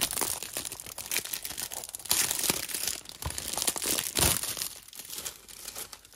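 Crinkling and rustling of a Blu-ray case's clear plastic outer sleeve and its paper cover insert as the insert is slid out, with sharp crackles and clicks. It dies away near the end.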